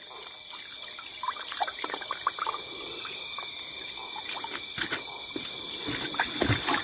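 Water trickling and splashing lightly as freshly cleaned fish are rinsed, with small irregular splashes. A steady high insect chorus, crickets among it, trills throughout.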